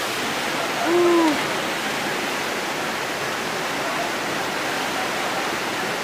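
Waterfall rushing steadily into a rocky plunge pool. About a second in, a short call briefly stands out above it, rising and then falling in pitch.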